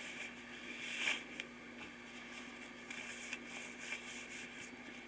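Gloves being pulled onto the hands: soft, scattered rustling and rubbing noises, over a faint steady hum.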